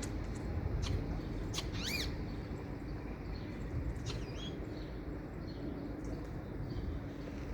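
Common starling calling: a few sharp clicks, then a bending whistle about two seconds in and a wavering whistle about four seconds in, over a steady low background rumble.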